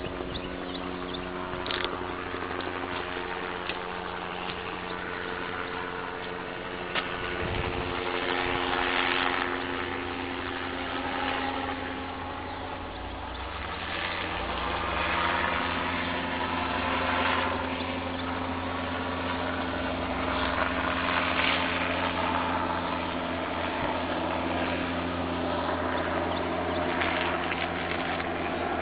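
An engine running steadily, its hum changing pitch about halfway through, with swells of rushing noise coming and going over it.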